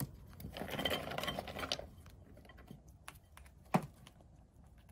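Nuts in the shell rattling and rustling in a bowl as a gray squirrel pulls one out, followed by a few scattered sharp clicks, the loudest a little before the end.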